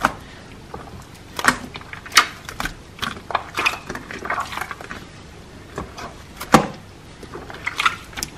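Hands squishing, pressing and pulling a very watery, runny slime: irregular wet squelches and sticky pops, some sharp.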